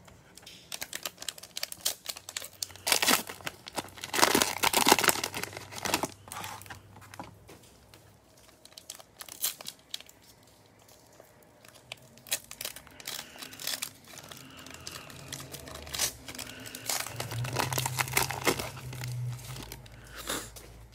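Plastic cellophane wrappers of Prizm baseball card packs crinkling and tearing as gloved hands rip them open. The loudest crinkling comes about three to six seconds in, with more from about twelve to nineteen seconds in.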